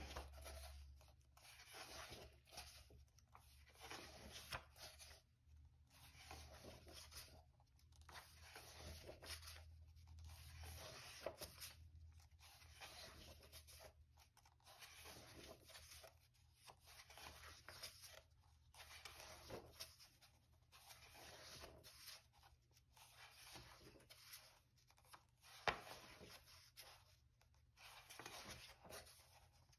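Faint rustle and slide of paper as the pages of a paperback colouring book are turned one after another, about one every two seconds, with a single sharper click late on.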